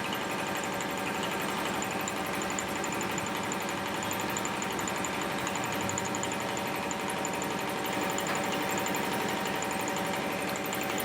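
A machine running steadily with a fast, even rhythm.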